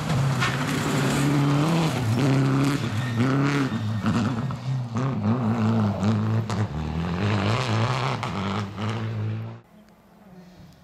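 Citroën DS3 rally car's engine revving hard at close range, its pitch climbing and dropping repeatedly through throttle lifts and gear changes, with scattered sharp cracks. The sound cuts off suddenly about a second before the end, leaving only a faint engine sound.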